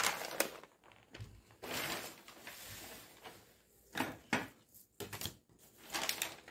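Kraft-paper pattern sheets rustling and crinkling as they are shuffled and moved on a table, with a few short sharp taps and clacks of rulers and paper being set down.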